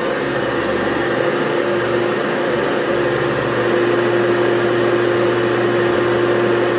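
Vacuum cleaner running steadily: a constant motor whine over a rush of air.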